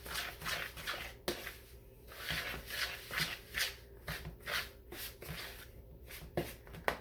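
Cornmeal batter being stirred by hand in a mixing bowl: repeated wet scraping strokes, about two a second, with a sharp click about a second in and again near the end.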